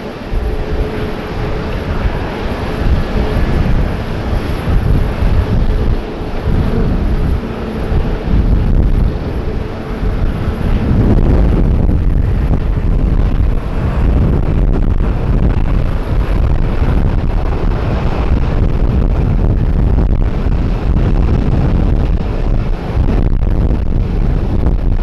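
Jet airliner on landing approach, its engines a steady rush of noise that grows louder about eleven seconds in, with gusty wind rumbling on the microphone.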